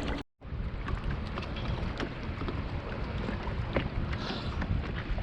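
Water lapping and slapping against the hull of an anchored jet ski, with wind buffeting the microphone and scattered small knocks. The sound cuts out completely for a moment just after the start.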